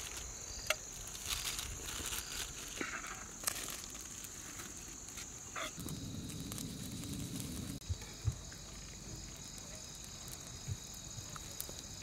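Night insects, crickets, trilling steadily at a high pitch, with a second, lower trill joining about halfway. Aluminium foil crinkles in the first few seconds, and scattered crackles come from a straw fire.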